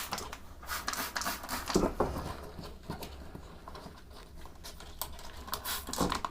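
Irregular light clicks, taps and scrubbing from a brush and hands working over a vintage sewing machine during cleaning, with a low rumble underneath.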